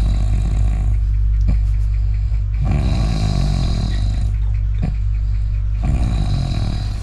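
A person snoring loudly in deep sleep, a heavy snore on each breath with quieter gaps between, three loud snores in all.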